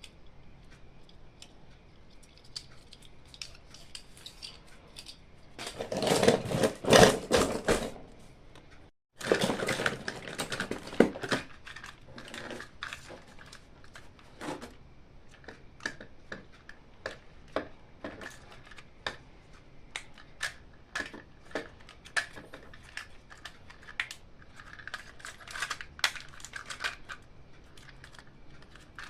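Hands handling plastic toys and their packaging: small hard plastic clicks and taps, with a louder, denser stretch of handling noise about six seconds in. The sound cuts out for a moment at about nine seconds.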